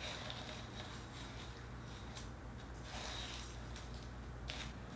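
Hands squishing and kneading fishbowl slime (pink glue slime mixed with clear plastic filler beads), giving wet squishes and crackles at irregular moments over a steady low hum.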